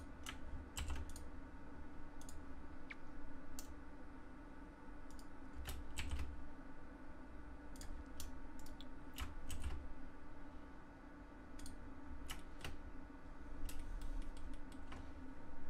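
Computer keyboard keystrokes for shortcuts: scattered, irregular sharp clicks, a few at a time with gaps between, over a faint steady hum.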